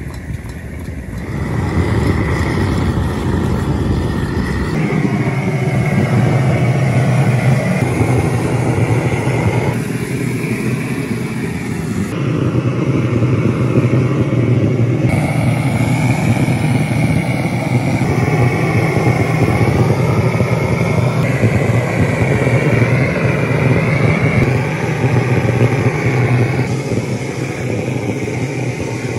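Pressurised liquid-fuel blowtorch (hand-pumped blowlamp) burning with a loud, steady roar as its flame singes the hair off a buffalo head. The roar shifts abruptly in tone every few seconds.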